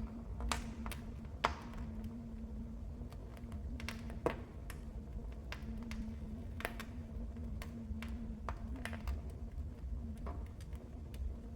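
Wood fire crackling: irregular sharp pops and ticks over a low steady rumble of burning, with the loudest pops about a second and a half in and about four seconds in.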